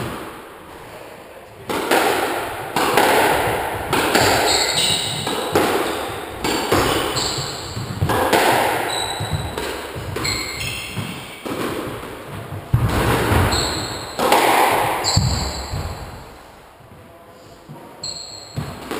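Squash rally: the rubber ball is struck hard by rackets and smacks off the court walls about once a second or so, each hit echoing in the enclosed court, with trainers squeaking on the wooden floor between shots. It goes quiet near the end as the rally stops.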